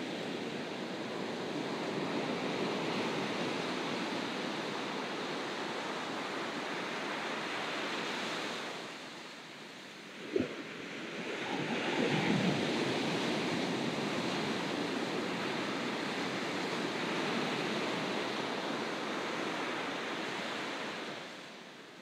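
Ocean waves breaking and washing ashore: a steady rush of surf that eases about nine seconds in. A brief sharp thump comes about ten seconds in, then the next wave breaks and rushes up the shore, fading again near the end.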